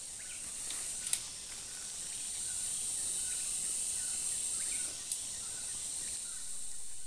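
Steady high-pitched drone of insects in bamboo forest, with two sharp cracks about a second in and about five seconds in.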